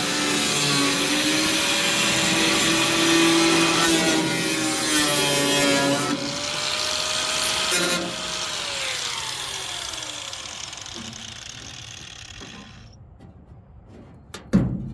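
A high-speed power cutting tool whining steadily as it cuts through truck-bed sheet metal; about six seconds in it is released and winds down, its pitch falling over several seconds. A couple of short knocks follow near the end.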